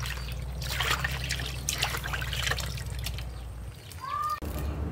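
Water sloshing and splashing in a plastic basin as hands wash pieces of meat, with a few splashy bursts.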